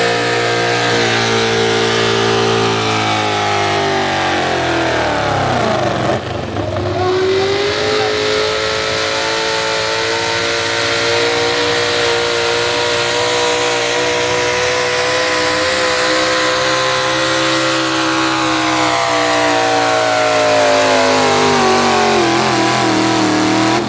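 Modified four-wheel-drive pulling pickups' engines at full throttle under sled load. The first engine runs at high revs and sags in pitch about five seconds in; a second truck's engine then holds high revs and falls slowly in pitch near the end as the load drags it down.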